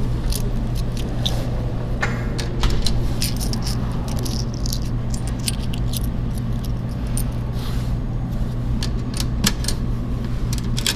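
Coins and keys clinking and jingling in short scattered clicks as quarters are fished out of a pocket and fed into a coin-operated toy vending machine, over a steady low hum.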